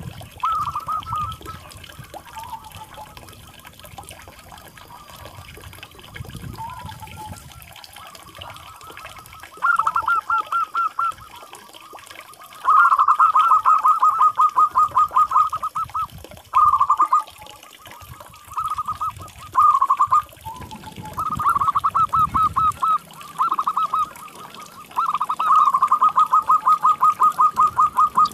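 Zebra doves (perkutut) cooing: phrases of rapid, trilled notes repeated in bursts of one to three seconds, the longest and loudest coming from about halfway in.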